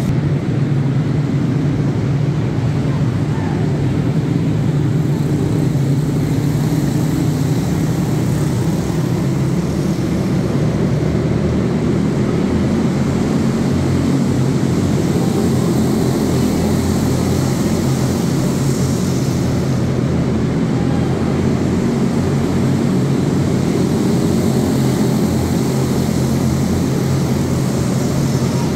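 A pack of small racing karts running laps together, their Briggs & Stratton Animal single-cylinder engines blending into one steady, continuous drone, heard inside a large arena hall.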